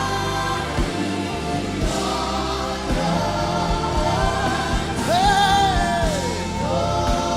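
Gospel worship song: a choir singing held notes over a band with a steady drum beat. About five seconds in, one louder note swells up and falls away.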